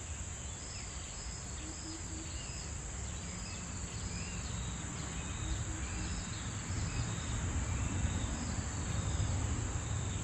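Steady high-pitched drone of insects, with short chirps repeating over it and a low rumble underneath that gets a little louder in the second half.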